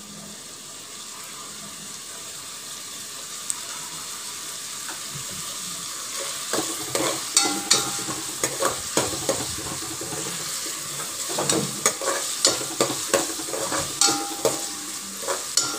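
Chopped onions sizzling in oil in a stainless steel pot as they are sautéed to soften, the sizzle growing louder. From about six seconds in, a spoon repeatedly scrapes and knocks against the pot as the onions are stirred.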